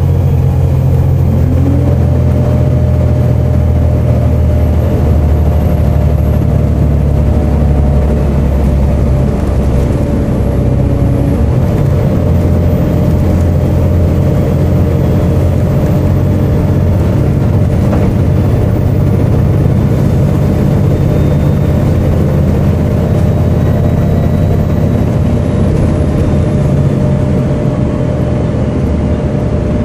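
Volvo B7TL double-decker bus's six-cylinder diesel engine running while the bus is driven. A steady whine rides over the engine, and the engine note changes about a third of the way in.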